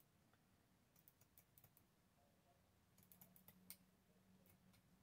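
Faint, quick clicks of scissors snipping paper, in two short runs about two seconds apart.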